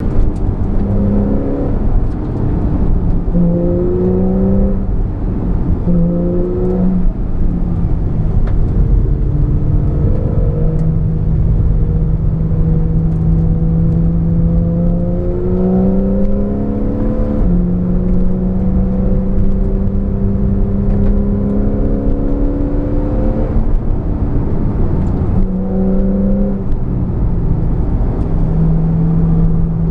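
Porsche 911 Carrera S (991) 3.8-litre flat-six engine accelerating through the gears. Its pitch climbs and drops at each gear change, several quick changes at first and then longer pulls, over a constant rush of road noise.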